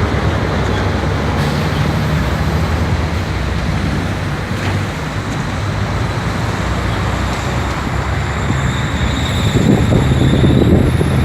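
Strong wind buffeting the microphone in a continuous low rumble and rush over high-tide surf, with a louder gust near the end.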